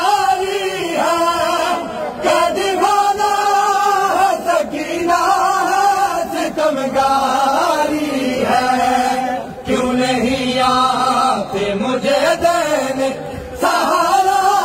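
A noha, a Shia lament, chanted in Urdu in long melodic lines, with short breaks between lines about ten and thirteen seconds in.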